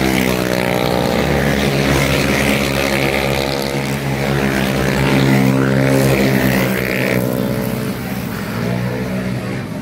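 Racing motorcycle engine held at high revs, a steady drone that drops slightly in pitch and level about eight seconds in.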